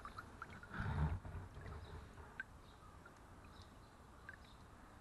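Small river running, with scattered small clicks and one dull low thump about a second in.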